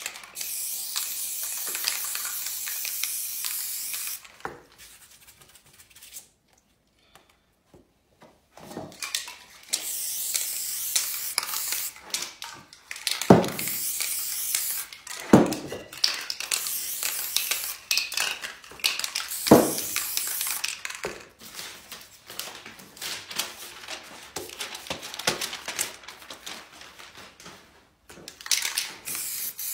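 Aerosol spray-paint cans hissing in bursts, with a quiet pause a few seconds in. When the spraying resumes, three sharp knocks stand out.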